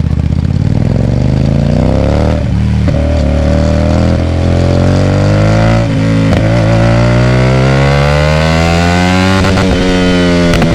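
Hyosung GT250R's V-twin engine through a loud aftermarket IXIL exhaust, accelerating: the pitch climbs with the revs and drops back at two upshifts, about two and a half and six seconds in. A few sharp cracks near the end.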